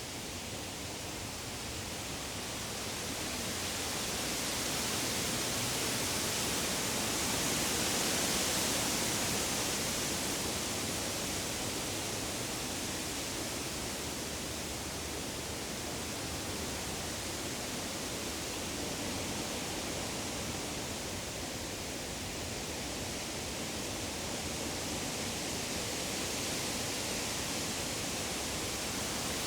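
Woodland ambience: a steady rushing hiss that swells about a quarter of the way in and then settles back, with no bird calls standing out.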